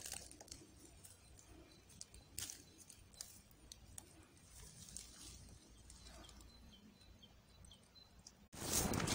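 Faint rustling with a few light clicks as picked herb stems are dropped into a wicker basket. Near the end a much louder, steady rustling noise starts abruptly.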